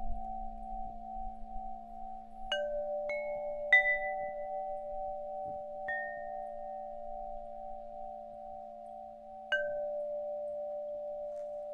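Singing bowls ringing in long, steady tones with a slow wavering pulse. Five bright struck chime notes ring out and fade over them, the loudest about four seconds in and another near the end.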